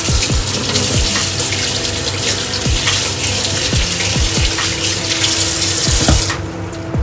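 Kitchen tap running hard into a sink, shut off about six seconds in.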